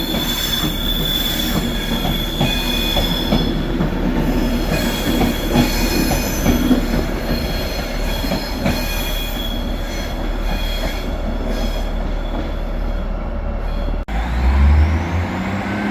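Class 390 Pendolino electric train moving along the platform, its wheels squealing in several steady high tones and clicking and rumbling over the track, the squeal fading as it goes. Near the end the sound cuts to a lower steady engine hum.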